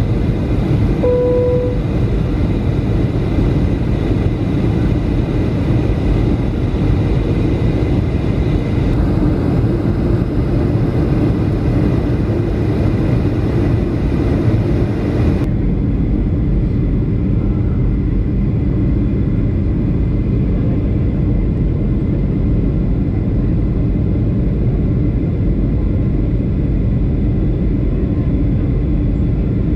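Steady cabin noise of a Boeing 737-500 on approach, heard at a window seat: an even, low rushing hum of its CFM56 engines and airflow. A short steady tone sounds about a second and a half in.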